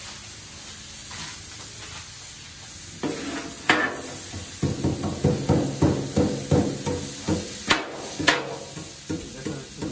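Metal spatulas chopping and scraping riced cauliflower on a Blackstone steel flat-top griddle over a light sizzle. From about three seconds in come quick knocks of the blades on the steel, about three a second, with a few sharper clicks.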